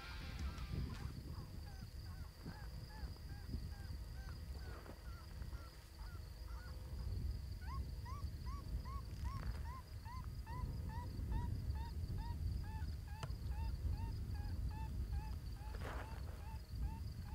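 ICOtec electronic predator caller playing its "Tiny Bunny" rabbit-distress sound: short, squeaky cries repeated about two or three a second, growing louder about halfway through, over a low rumble.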